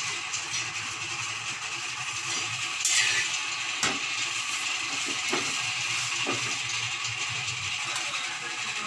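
A metal spatula tapping and scraping on an iron tava as a chapati is pressed and turned, a handful of sharp taps over a steady hiss.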